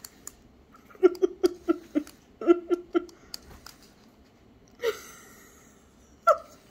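A person laughing in two quick runs of short 'ha-ha' pulses, about a second in and again around two and a half seconds in, then a single short breathy sound near the end.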